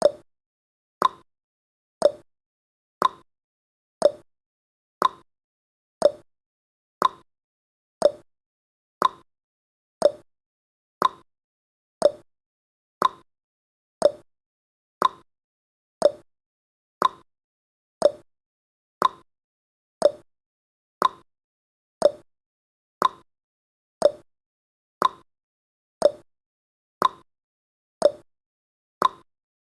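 Countdown timer's tick sound effect: a short, sharp tick once every second, evenly spaced, about thirty in all.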